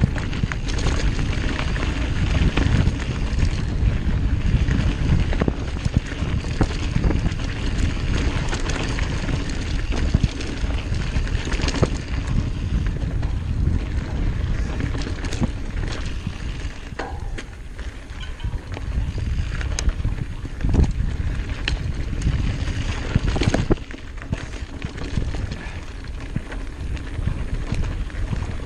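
Mountain bike riding fast down a dirt forest singletrack: wind rushing over the microphone and tyres rolling on dirt, with frequent sharp clicks and knocks as the bike rattles over roots and bumps.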